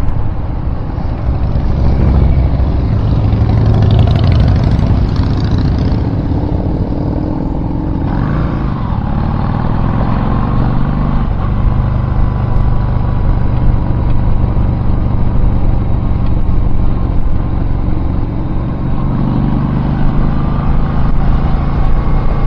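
Engine and road noise of a moving vehicle heard on board. The engine note rises and then drops back twice in the first half as it picks up speed, then runs steadily.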